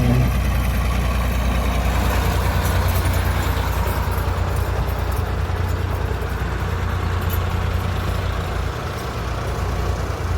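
Heavy diesel engine of earth-moving machinery running steadily, its sound weighted low.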